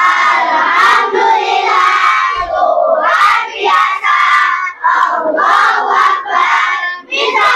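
A class of young schoolchildren chanting a loud reply in unison, many voices together, answering their teacher's greeting "how are you".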